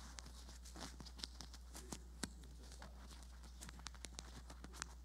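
Microphone handling noise: irregular small clicks and rubbing as a body-worn microphone at the collar is adjusted, over a steady low hum.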